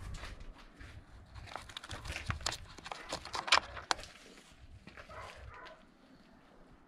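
A run of sharp clicks and light knocks, thickest in the middle and sparse near the end.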